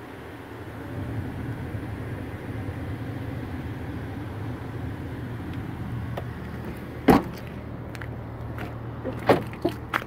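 A rear passenger door of a Land Rover SUV shut with a single solid thud about seven seconds in, over a steady low hum. A few lighter clicks follow near the end.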